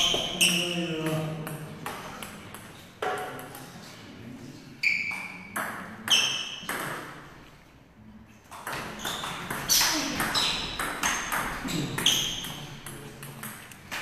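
Table tennis ball being hit back and forth in a doubles rally: a string of sharp clicks as the ball strikes the bats and bounces on the table, with a brief lull near the middle.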